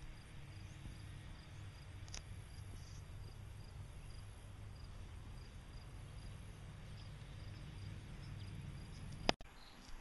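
Faint rural ambience: a steady low rumble under insects chirping softly in an even rhythm, with one sharp click about nine seconds in.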